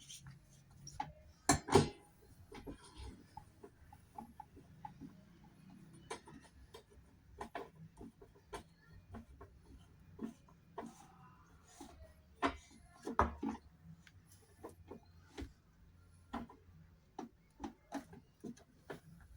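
Scattered light clicks and knocks from tools and parts being handled, with two louder knocks about two seconds in and about thirteen seconds in.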